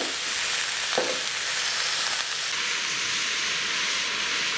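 Diced root vegetables, onion and dried fruit sizzling as they fry in a hot cast-iron Dutch oven over a gas burner. Two brief knocks or scrapes come near the start and about a second in.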